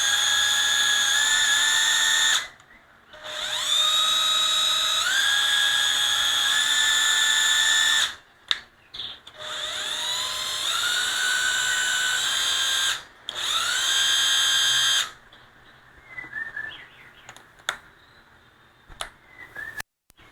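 National EZ7202 cordless drill driver running in four bursts, its motor whine stepping and gliding up in pitch as the trigger is squeezed further. After about fifteen seconds it stops, leaving a few light clicks.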